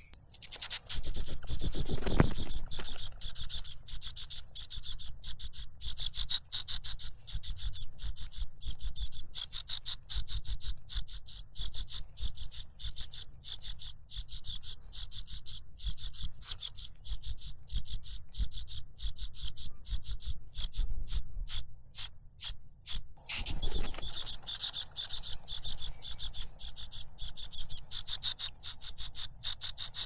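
Cuckoo chick begging: a loud, continuous, very high-pitched rapid trill, which starts abruptly and breaks off briefly about three-quarters of the way through. A couple of low thumps come about two seconds in and again just after the break.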